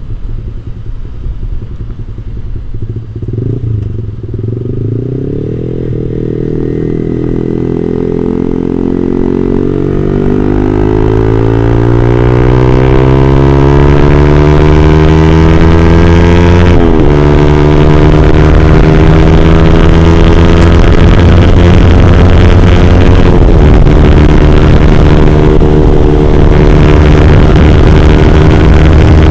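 Yamaha R15 V3's single-cylinder engine through an R9 GP-series aftermarket racing exhaust, under way. The exhaust note climbs steadily in pitch and loudness for about ten seconds, drops sharply for a moment, as at a gear change, then holds high and steady.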